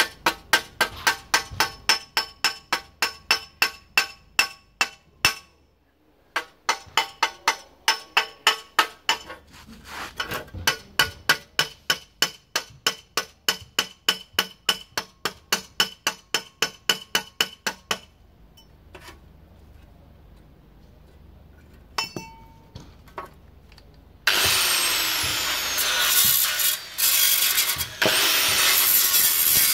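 Hammer beating the edge of a sheet-steel panel into a curve, about three blows a second in two long runs, each blow ringing metallically. After a quieter stretch with a few knocks, an angle grinder starts up near the end and grinds the panel's edge.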